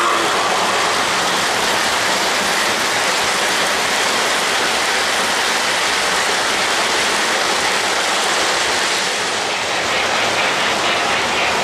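O-gauge model passenger train running past on three-rail track: a steady rushing noise of the wheels rolling, easing slightly near the end.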